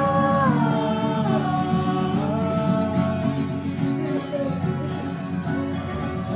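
Acoustic guitar music with a slow melody held in long, sliding notes over a steady strummed accompaniment.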